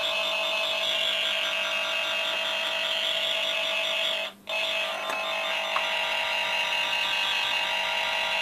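Handheld inductive tone-tracer probe sounding a steady electronic tone with a rapidly pulsing higher note as it picks up the generator's signal from the cable's conductors. The tone cuts out briefly a little past halfway, then resumes.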